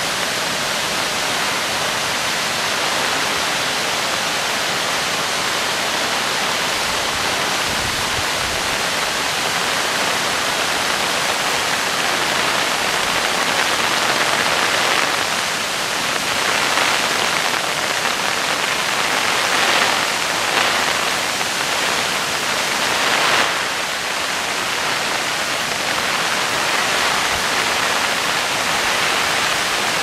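Rain-swollen waterfall and stream rushing steadily, a constant watery roar that swells a little in the middle, with rain falling.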